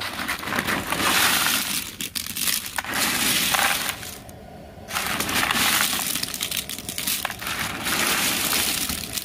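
Hard, dried unfried shrimp chips (prawn crackers) being stirred and rummaged by hand in a plastic tub, clattering and clinking against each other in bursts, with a short lull about four seconds in.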